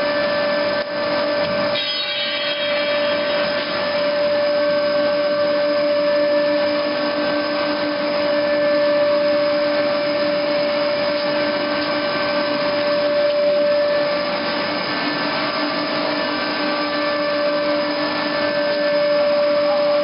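Plastic pipe production line with its pipe coiler running: a steady mechanical drone with a constant mid-pitched whine, briefly dipping about a second in.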